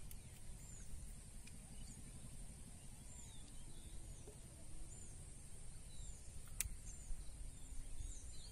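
Rural outdoor ambience: small birds chirping in short repeated calls, about one a second, over a steady high-pitched insect drone and a low rumble. A single sharp click sounds about six and a half seconds in.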